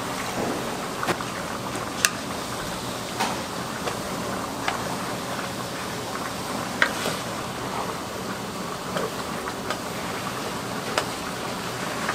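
Seaweed strips and carrot stir-frying in a nonstick wok: steady sizzling, with a wooden spatula knocking and scraping against the pan now and then.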